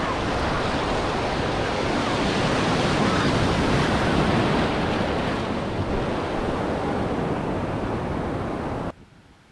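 Breaking surf and foaming whitewater rushing around a camera at the waterline, a loud steady wash with some wind buffeting the microphone; it cuts off suddenly near the end.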